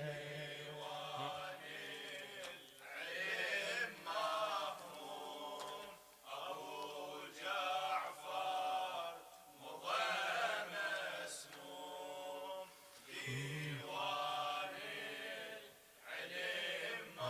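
A group of men chanting a Shia mourning refrain (latmiya) in unison. The chant is fairly faint and comes in short repeated phrases, about one every one and a half seconds.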